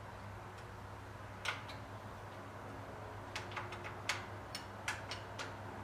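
Light clicks and taps of bicycle parts being handled and adjusted while the front end, handlebars and cables, is set up: a single click, then a scattered run of them a couple of seconds later, over a steady low hum.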